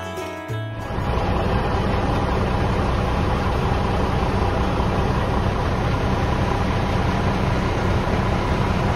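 A short guitar-music tail ends about a second in. It gives way to the 1996 International 4700's DT466 inline-six turbo diesel idling steadily.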